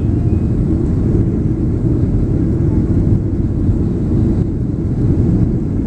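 Steady low rumble inside the cabin of a Boeing 737 rolling out on the runway after touchdown.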